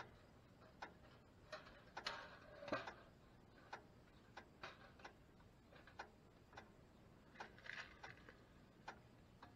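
Faint, scattered clicks and light taps of a wire-mesh cage trap being handled and set, with short scraping rustles about two to three seconds in and again near the end.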